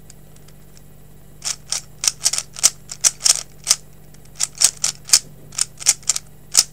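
Dayan Zhanchi 3x3 speed cube being turned by hand: an irregular, quick run of sharp plastic clicks as its layers snap round, starting about a second and a half in.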